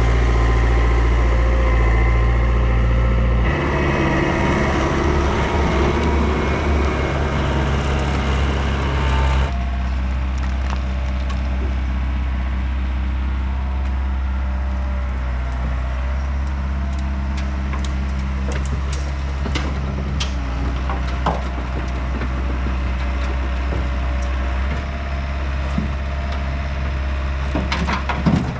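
Diesel engine of Yanmar compact machinery running steadily, with scattered sharp cracks and crunches in the second half and a quick cluster of them near the end.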